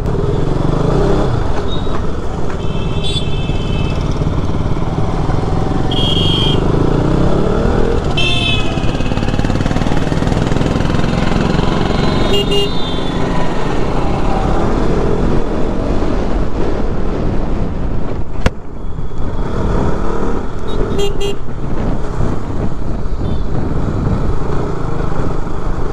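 KTM RC 200's single-cylinder engine running under way, its pitch rising as it pulls away, over steady road noise. Several short horn honks come from traffic along the way.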